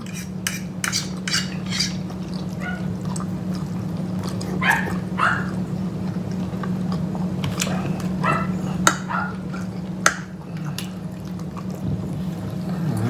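Forks clicking and scraping on dinner plates, with wet chewing and mouth sounds from two people eating, over a steady low hum.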